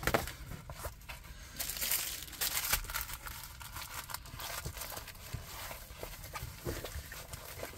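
Rustling and crinkling of a rolled diamond-painting canvas being unrolled and smoothed flat by hand on a desk, with small taps and scrapes; the loudest rustling comes about two seconds in.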